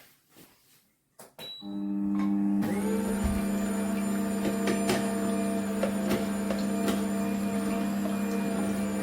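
Electric cold-press slow juicer motor switching on after a few faint clicks, with a steady low hum that turns louder and noisier about a second later as it keeps running evenly.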